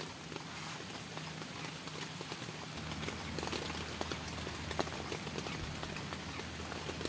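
Rain falling steadily, with many irregular drops tapping on a nylon tent's fabric. A low steady hum comes in about three seconds in.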